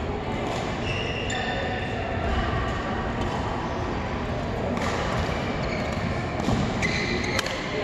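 Badminton rally: a few sharp racket strikes on the shuttlecock, the clearest about five seconds in and near the end, with short squeaks of court shoes on the hall floor between them.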